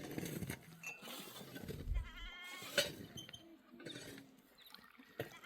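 Sheep or goats of the flock bleating, with one quavering call about two and a half seconds in. A sharp click and a brief low rumble come at about the same time.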